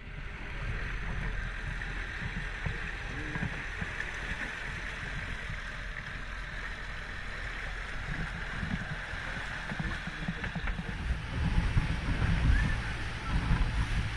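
Motorboat under way at speed: a Suzuki 200 outboard running under a steady rush of water and wind. Heavier low wind buffeting on the microphone from about eleven seconds in.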